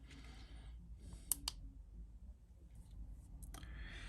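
A few small sharp clicks from handling an iPhone battery on a battery tester, two close together about a second in and fainter ticks near the end, over a low steady hum.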